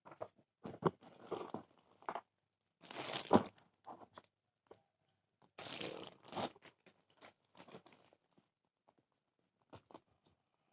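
Packaging being torn and crumpled by hand: irregular crinkling and tearing noises, loudest about three seconds in and again around six seconds.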